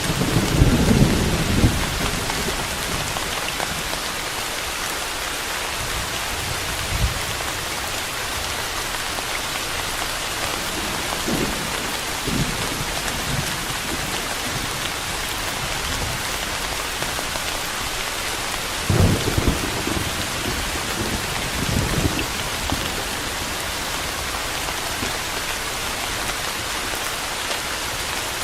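Steady rain hissing, with low rolls of thunder rumbling through it: one at the very start, a stronger one about two-thirds of the way in, and a few fainter rumbles between.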